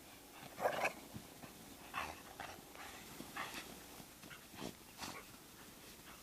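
Dogs playing in snow, making several brief, quiet dog noises, the loudest about a second in.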